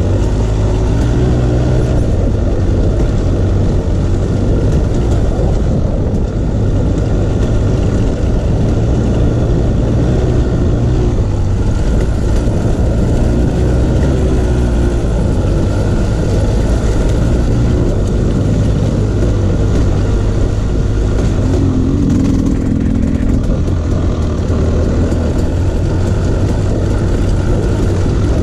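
Off-road vehicle engine running steadily under way on a trail, with a brief rise in pitch about three-quarters of the way through.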